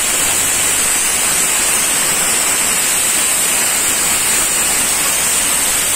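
Loud, steady hiss of static-like noise that starts and cuts off abruptly, with no knife or voice sounds to be heard through it.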